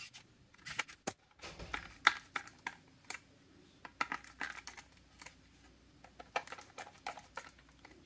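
Irregular small clicks and taps, sped up: screwdrivers turning screws into a plastic multimeter case and the case being handled.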